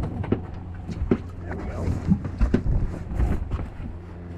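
Boat engine idling with a steady low hum, with scattered knocks and clicks over it.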